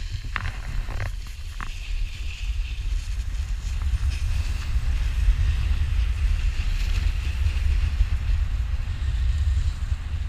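Wind rumbling on an action camera's microphone as a snowboard runs downhill, with the steady hiss of the board sliding over snow. There are a few sharp clicks in the first two seconds.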